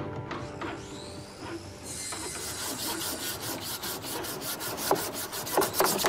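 Hand-sanding a carved wooden cabinet with a sanding block: rhythmic back-and-forth rasping strokes, several a second, starting about two seconds in, with a few sharper knocks near the end.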